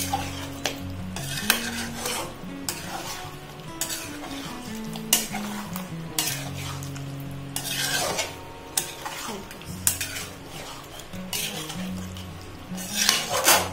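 Metal spatula stirring thick pumpkin curry in a steel kadhai, scraping and clinking against the pan over a soft sizzle as curd is mixed in. The louder scrapes come about five and eight seconds in and near the end.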